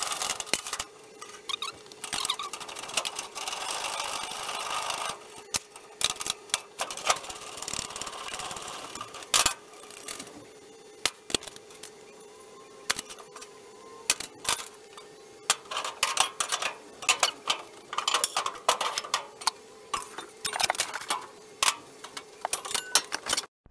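Irregular knocks, clanks and rattles of hand work on a bare steel car body shell, over a steady hum. The rattling comes in denser spells near the start and again in the second half.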